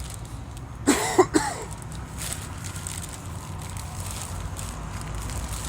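A man's brief vocal outburst, a few quick voiced sounds about a second in, over a steady low hum of distant traffic.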